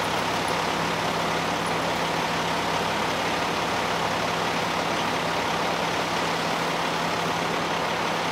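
Steady hum of an idling vehicle engine: an unchanging low drone over a constant rumble, with no other events.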